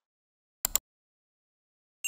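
Computer mouse click sound effect: a quick double click a little under a second in.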